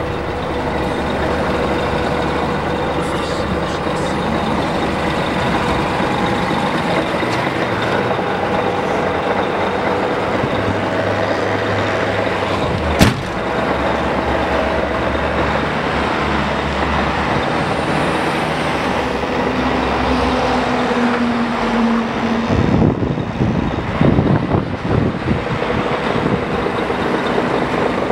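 Scania R420 truck's diesel engine idling steadily, heard first inside the cab and then outside; about halfway through comes one sharp loud bang, a cab door slamming shut. Near the end there are a few seconds of irregular low bumps and rustling.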